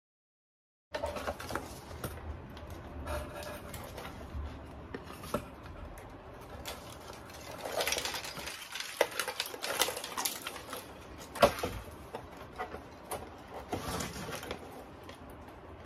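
Handling noise from foam-board craft work: boards and paper moved about on the table, with scattered taps, clicks and scrapes and one sharper tap about three-quarters of the way through. It starts abruptly after a second of silence.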